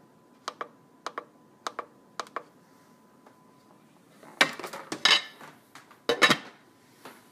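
Crock-Pot slow cooker control button clicking four times, about every half second, as the cook-time setting is stepped through. Then the glass lid clatters onto the stoneware crock in two bursts, the second one loudest.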